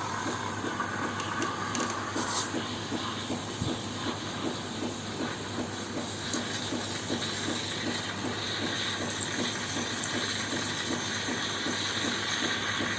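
Steam from a Krups EA8080 coffee machine's steam outlet hissing steadily into milk to froth it, with a fast, even pulsing underneath.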